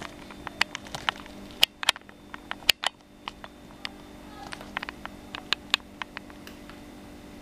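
Irregular sharp clicks and pops, a few a second and loudest around two to three seconds in, over a steady low hum.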